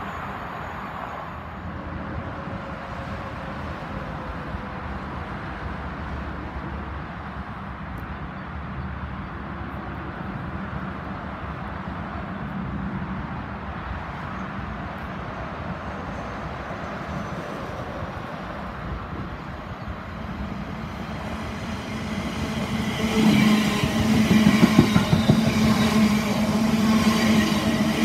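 Electric multiple-unit train's steady low rumble from down the line, then near the end the train comes in close alongside the platform, much louder, with a steady drone and a clatter of wheels over the rails.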